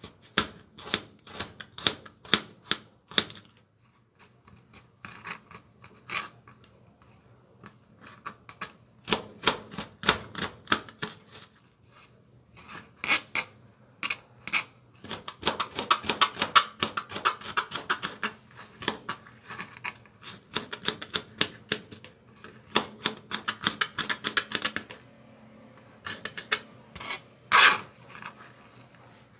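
Kitchen knife slicing and chopping garlic cloves on a plastic cutting board: runs of quick taps of the blade on the board, broken by short pauses. One louder knock comes near the end.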